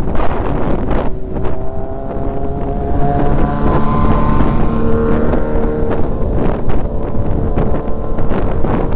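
Wind buffeting the microphone of a moving bicycle, with the road noise of passing traffic. A passing vehicle's engine drone swells from about a second and a half in and is strongest about three to six seconds in, as an SUV goes by close alongside.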